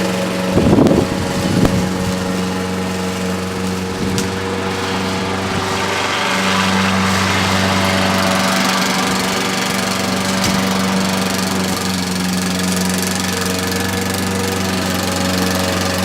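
Lawn mower's small petrol engine running steadily under mowing load, with two brief knocks about a second in.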